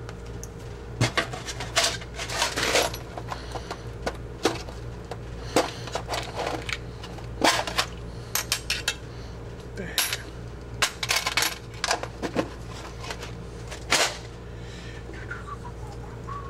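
Small metal hand tools and drill bits being handled, giving a scattered series of sharp clicks and clinks over a steady low hum.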